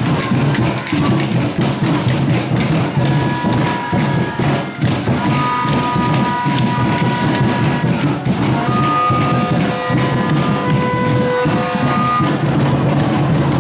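Music with drums and percussive knocks; a melody of long held notes comes in about three seconds in.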